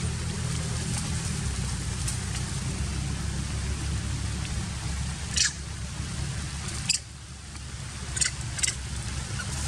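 Steady wind rumble and hiss on the microphone, with four short high-pitched monkey squeaks in the second half.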